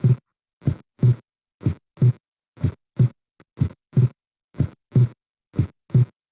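Recorded heart sounds in a short looping clip: a steady lub-dub about once a second. The second heart sound is split into two small sounds stuck close together, the splitting of S2 that widens during inspiration.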